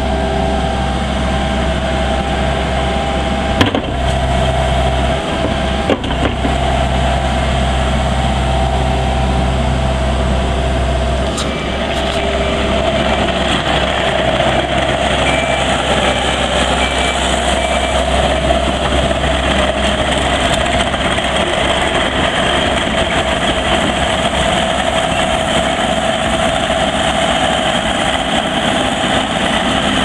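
Yanmar four-cylinder diesel engine of a Takeuchi TL150 tracked skid steer running steadily, with two short knocks a few seconds in. About eleven seconds in, the deep low hum drops away and the engine sound turns brighter and more rushing.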